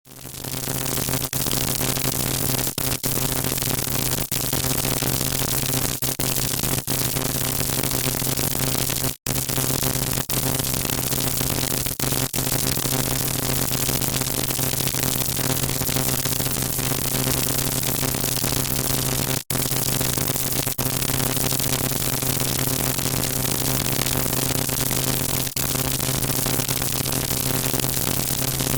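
High-voltage electrical arcing: dense, continuous crackling over a steady electrical buzz, breaking off briefly twice, about nine and nineteen seconds in.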